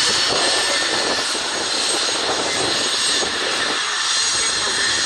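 Twin rear-mounted turbofan engines of a Cessna Citation business jet at taxi power as it turns on the runway, giving a steady rushing noise with a high turbine whine over it.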